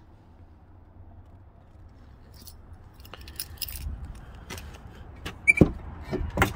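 Clicks and handling noises, then the rear door of a Dodge Ram 3500 crew-cab pickup unlatching with a loud clunk about halfway through as it is pulled open, and a second knock near the end as it swings out.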